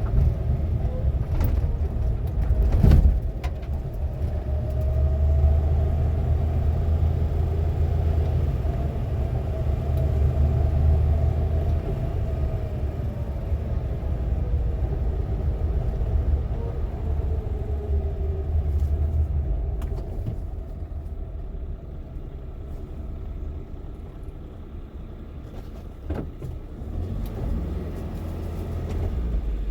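Suzuki Jimny JA71 being driven: steady low engine and road rumble, with a whine whose pitch drifts and falls partway through, and a sharp knock about three seconds in.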